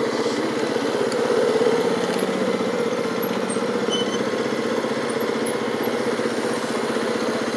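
ATV (four-wheeler) engine running steadily while under way, heard close up from the rider's seat.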